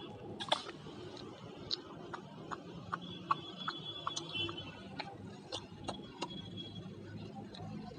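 A pet parrot's beak making sharp, irregular clicks and taps, about one or two a second, with a faint high thin tone in the middle.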